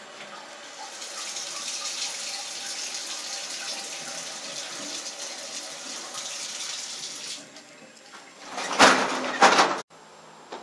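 Bathroom sink tap running, water splashing into the basin, fading out about seven seconds in. Two loud short noises follow near the end.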